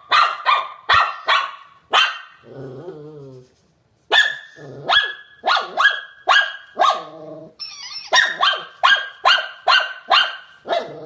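Shih tzu barking in quick strings of sharp barks, about three a second, with a short low growl about two and a half seconds in before the barking starts again.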